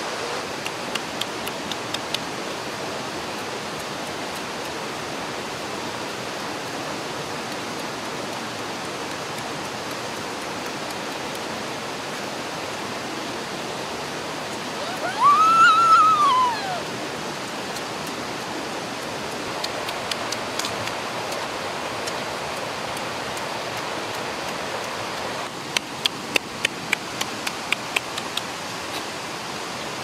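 Waterfall and stream rushing steadily. About halfway through a child's voice gives one short rising-and-falling sound, and a run of sharp clicks comes near the end.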